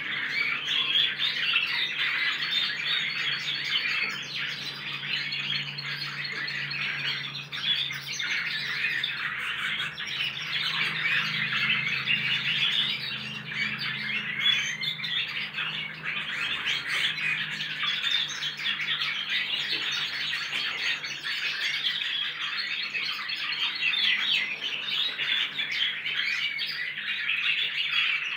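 Several young crossbred goldfinches practising their song: continuous, overlapping twittering and warbling with no pauses, the immature practice song of young males, some of it picking up canary-style song. A faint low steady hum runs underneath.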